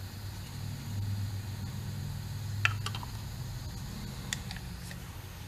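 A few small, sharp clicks of lawn mower carburetor parts (float, needle and bowl) being handled and fitted back together, the first the loudest, over a steady low hum.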